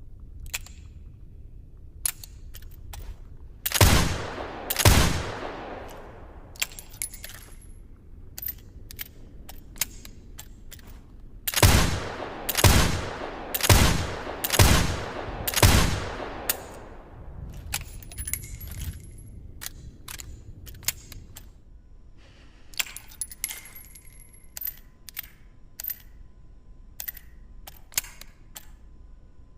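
Taurus Judge revolver firing: two shots about a second apart, then a string of five shots about a second apart, each with a long ringing tail. Light clicks and clinks of the gun being handled come before, between and after the shots.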